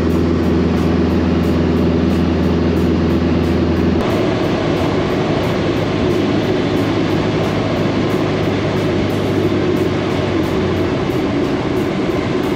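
Small single-engine propeller plane heard from inside the cabin. First comes a steady engine-and-propeller drone in flight, then after a sudden change about four seconds in, a broader rushing noise as the plane rolls along the runway after landing.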